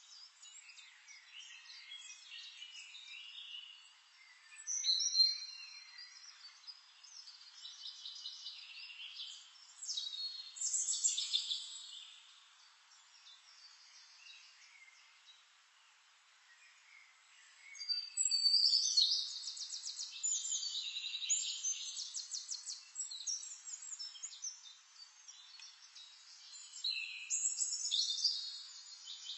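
Several songbirds singing in overlapping chirps and rapid trills, coming in phrases with loud bursts about 5 and 11 seconds in, a longer trilled stretch from about 18 to 23 seconds, and another burst near the end.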